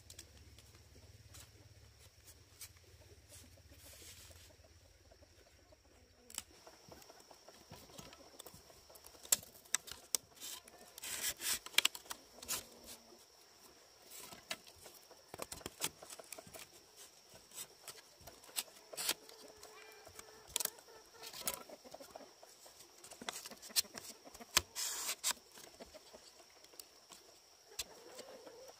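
Scattered, irregular knocks and taps, starting about six seconds in, over a faint steady high-pitched hum.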